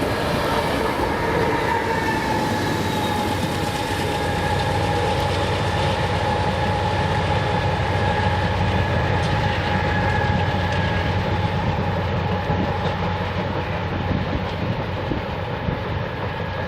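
BNSF freight train cars rolling past, a steady rumble of wheels on rail with a constant high tone held over it.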